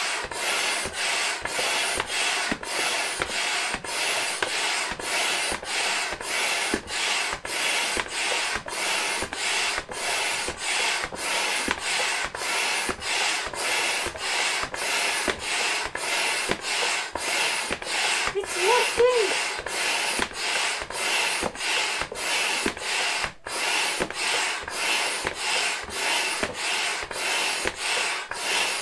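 Intex Double Quick III hand pump being worked steadily, each stroke a rush of air through the hose into an air mattress, about two strokes a second with a brief pause at each turn of the stroke.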